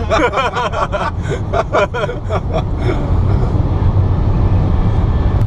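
Car driving along, heard from inside the cabin: a steady low rumble of engine and road noise, with a person's voice in the first three seconds.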